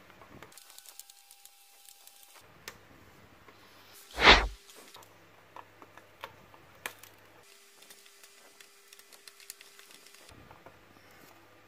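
Small flush side cutters snipping the protruding leads of freshly soldered capacitors on a circuit board, heard as scattered sharp clicks. A single loud knock a little over four seconds in stands out above them.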